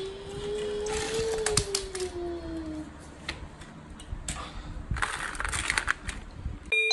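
Hard plastic toys clattering and knocking together in a plastic basket as a hand rummages through them, with bursts of clicks about a second in and again near the end. Over the first three seconds a drawn-out tone slowly rises and then falls.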